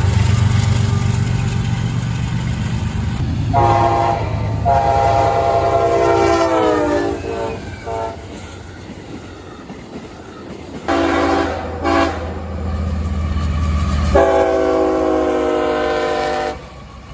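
Diesel freight locomotive's multi-note chime horn sounding a series of blasts, long and short, over the low rumble of the locomotive. The second long blast sags in pitch as it ends, and the last long blast cuts off sharply near the end.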